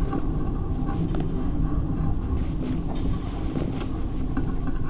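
A steady low engine-like rumble.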